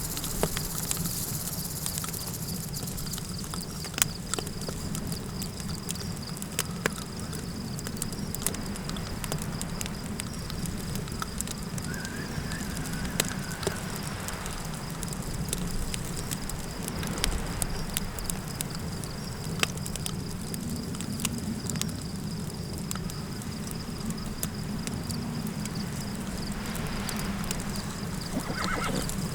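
Campfire crackling, with scattered sharp pops over a low steady rumble, under a steady high insect trill.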